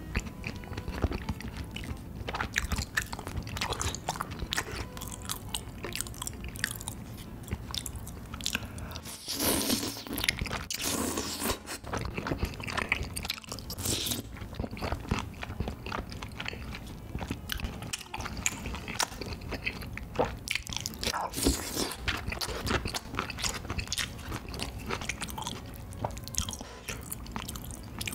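Close-miked eating of tteokbokki: chewing and mouth noises as chewy rice cakes, sausages and egg in thick spicy sauce are eaten, with light clicks of a wooden spoon and chopsticks against the plate.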